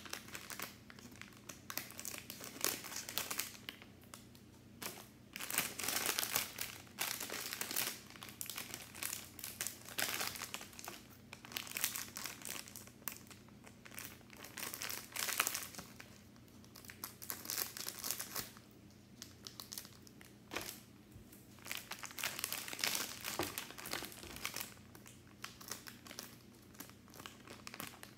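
Shiny plastic blind-bag packet of a Hot Wheels Monster Truck Minis surprise pack crinkling as it is handled and worked open by hand, in irregular bursts with short pauses.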